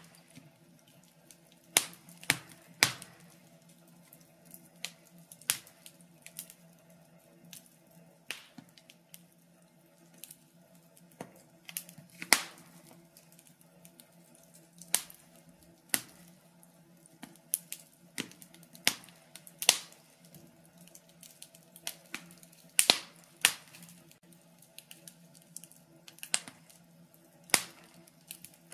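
Wood fire crackling, with irregular sharp pops and snaps, a few loud ones, over a low steady hum.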